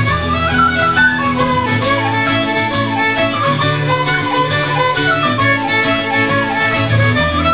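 Two fiddles playing a Scottish traditional tune over acoustic guitar accompaniment.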